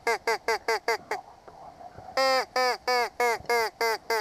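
Mallard duck call blown in two runs of hen-mallard quacks, each note dropping in pitch. A quick run of short quacks stops about a second in, and after a pause a slower run of longer quacks begins, each quack shorter than the last.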